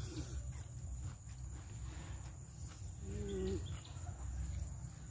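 Mouth sounds of people chewing food, faint clicks over a steady low rumble, with a constant high thin whine of insects. A brief low hum sounds about three seconds in.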